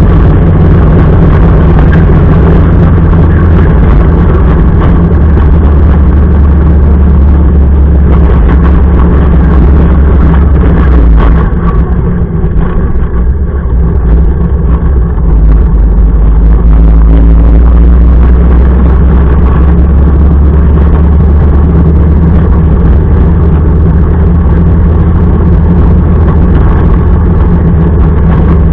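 Motorcycle engine running steadily while riding, with heavy wind noise over the microphone. The sound drops slightly for a few seconds about twelve seconds in, then returns to its steady level.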